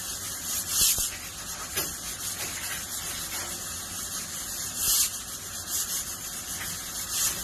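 Sliced vegetables sautéing over a low flame in a stainless steel pan: a steady sizzle, with short louder surges about a second in, near five seconds and near the end.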